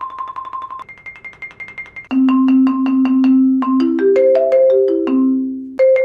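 Marimba One Classic marimba played with 0gravity Percussion Jupiter 3 medium mallets in rolls: a soft roll high on the keyboard, then, about two seconds in, a much louder roll in the low register that steps up through several notes.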